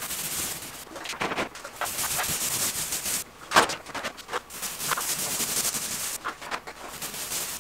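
Paintbrush swishing in strokes against a wall as white paint is brushed on along the ceiling line, with a few sharp taps or knocks in between.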